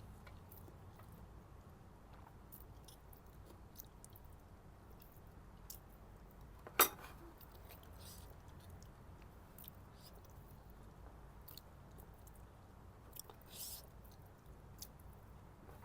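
Someone chewing a mouthful of biryani, with faint scattered small clicks and one sharp click about seven seconds in.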